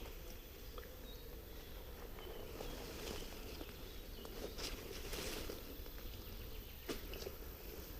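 Faint outdoor field ambience with light rustling and scattered small clicks, one sharper click about seven seconds in.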